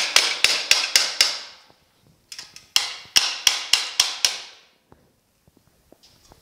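Hand hammer striking the steel of a bumper splash apron in two quick runs of about seven blows each, about four a second, each blow ringing briefly; the hammering stops about four and a half seconds in. The blows are working a rolled-over edge of the sheet-metal apron straight while a clamped bar holds it under pressure.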